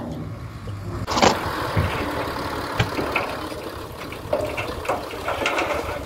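Tipper truck's diesel engine running while its raised bed tips out a load of gravel, with a single knock about three seconds in.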